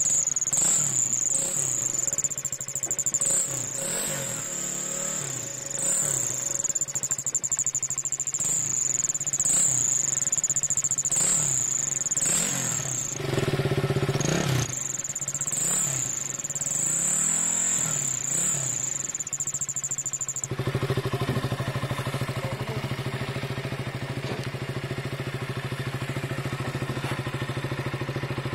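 KTM Duke 200's single-cylinder engine being blipped again and again, with a turbo-whistle insert in the exhaust adding a steady high-pitched whistle. About two-thirds of the way through, the whistle cuts off suddenly and the engine settles into a steady idle.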